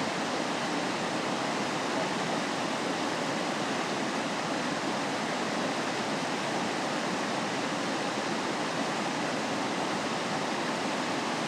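A waterfall rushing steadily, an even hiss of falling water with no change in level.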